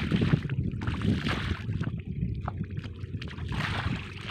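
Hands sloshing and splashing through shallow muddy water and mud while groping for fish, in repeated swishes about once a second, over a steady low rumble of wind on the microphone.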